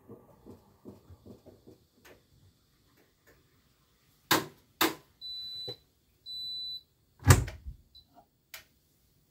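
AEG Lavamat 8000 series washing machine at the end of its programme: two sharp clicks, then two high electronic beeps about a second apart, then a heavy thud and a few small clicks from the machine's door and latch.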